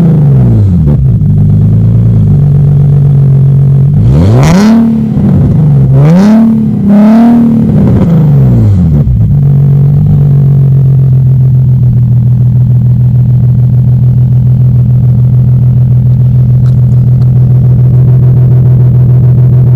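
Infiniti G37's 3.7 L V6 through a GReddy Revolution RS 3-inch titanium catback exhaust with resonated test pipes: a rev dropping back to idle at the start, then three quick blips of the throttle about 4 to 8 seconds in, then a steady idle.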